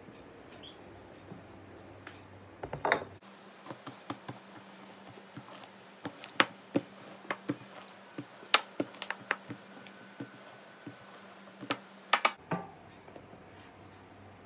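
Wooden rolling pin rolling bread dough on a counter, giving irregular light clicks and knocks as it is moved and set against the worktop, with a quick cluster of knocks near the end.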